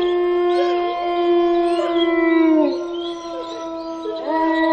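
Wolf howls in an eerie sound effect: several long, pitched howls overlap, one held howl sliding down and fading about two and a half seconds in, and a new howl rising near the end.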